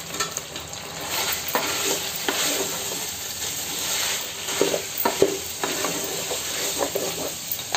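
Ginger chicken sizzling as it fries in oil in a pot, while a wooden spatula stirs it, scraping and knocking against the pot at irregular moments.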